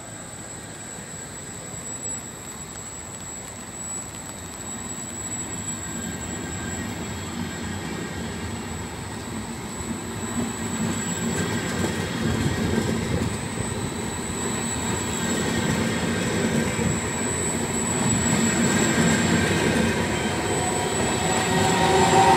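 A train of Vivalto double-deck coaches rolling slowly past, pushed by an E.464 electric locomotive at the rear. The rumble of wheels on the track grows steadily louder as the locomotive draws near, over a thin, steady, high-pitched squeal.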